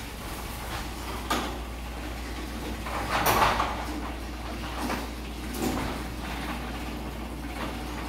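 CHI model 2250 steel sectional garage door opening under its electric opener: a steady low hum with rattling and clunking from the panels and rollers in the tracks, loudest about three seconds in.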